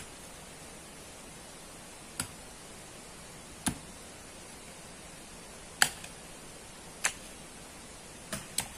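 Long-handled digging tools striking packed sand and gravel in a cut bank: about seven sharp knocks at irregular intervals, the loudest about six seconds in and two in quick succession near the end, over a steady hiss.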